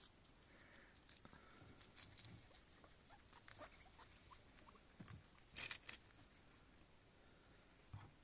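Faint rustling and small clicks of guinea pigs moving about in hay and straw bedding, with one louder rustle about five and a half seconds in.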